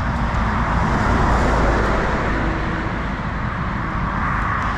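Steady rush of traffic on a busy road, cars passing, swelling a little louder about a second in.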